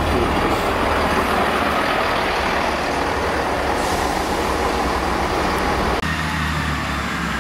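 Class 158 diesel multiple unit running past along the platform, a steady rumble of engine and wheels. About six seconds in it changes abruptly to the steadier low hum of the diesel unit standing with its engine running.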